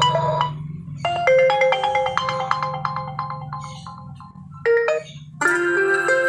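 Oppo A16 alarm ringtones playing one after another. One tune of quick ringing notes ends about half a second in. A new melody starts a second in and dies away, and after a brief snippet another tune begins near the end.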